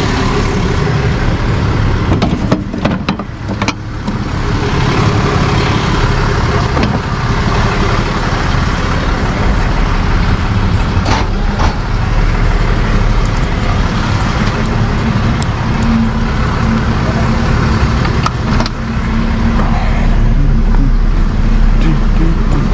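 Ram rollback tow truck's engine idling steadily, with a few brief knocks.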